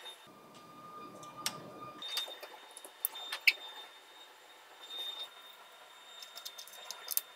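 Light clicks and taps of metal and plastic as a diode laser module is seated and fastened on its carriage, with a faint rubbing in the first couple of seconds and the sharpest click about three and a half seconds in.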